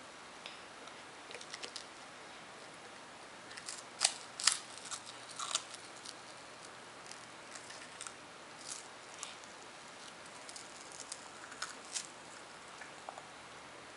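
Small, crisp crackles and clicks of a Baby Mum Mums rice rusk being broken apart and bitten by a baby, scattered through, with the loudest cluster about four to five and a half seconds in.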